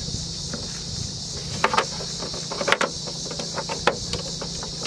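Light plastic clicks and knocks as the turn-signal bulb socket is twisted and pulled out of the back of a headlight housing, over a steady high hiss and a low hum.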